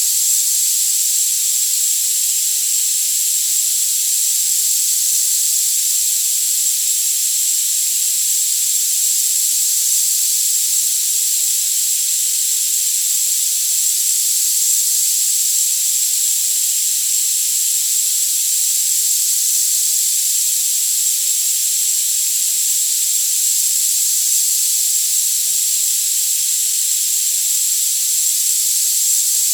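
Tinnitus sound-therapy noise: a steady, high-pitched hiss with no low end, and a single constant high tone running through it.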